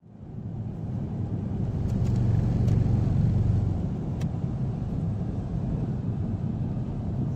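Car driving on a snow-covered road, heard from inside the cabin: a steady low rumble of engine and road noise that swells a little around the middle.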